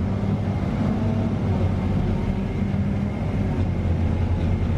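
Steady cabin noise of a Scania K320UA articulated city bus under way, heard from inside: a low engine drone with road rumble.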